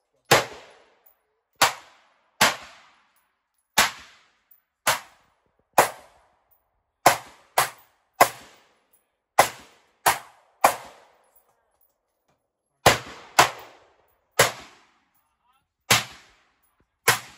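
AR-15-style semi-automatic rifle fired shot by shot, about seventeen sharp reports spaced half a second to a second and a half apart, with a pause of about two seconds partway through. Each shot trails off in a brief echo.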